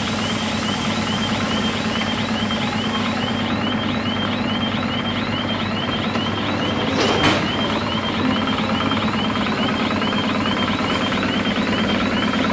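Level-crossing warning bell ringing in a steady, rapid rhythm of about two and a half rings a second, over the rumble of a passing electric multiple unit's wheels on the track. A high hiss cuts off about three and a half seconds in, and there is a loud clank about seven seconds in.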